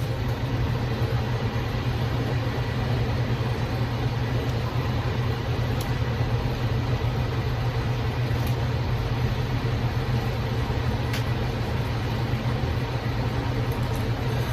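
Steady low hum over an even background rush, with a few faint clicks and no other events.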